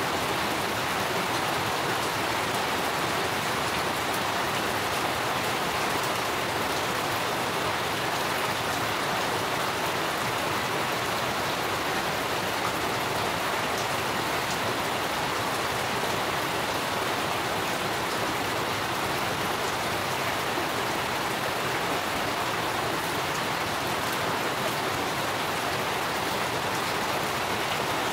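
Steady rain falling, an even unbroken hiss with no letup.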